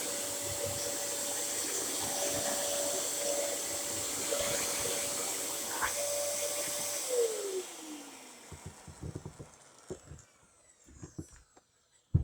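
Dyson DC07 upright vacuum cleaner running with a steady whine and airflow hiss. About seven seconds in it is switched off and the motor winds down in a falling whine over a second or so. A few light knocks and clicks follow.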